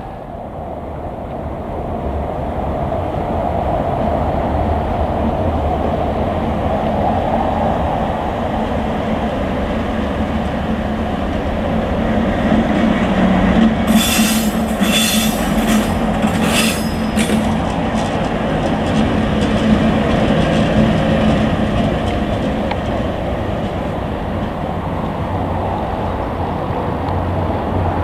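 V90 diesel-hydraulic shunting locomotive running past with a steady engine drone that grows louder as it comes close. A few brief wheel squeals on the rails come around the middle as it passes.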